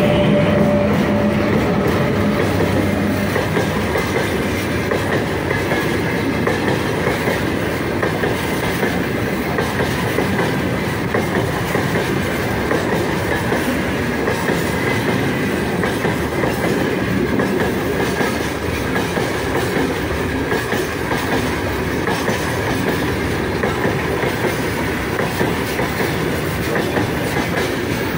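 Freight train of open gondola wagons rolling past close by, with a steady rumble and wheels clacking over the rail joints. A hum from the 3ES5K electric locomotive fades in the first few seconds as its last section goes by.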